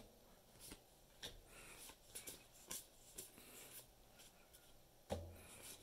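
Faint handling of Magic: The Gathering cards: irregular soft ticks and flicks as cards are slid off a stack one by one, with a soft thump about five seconds in.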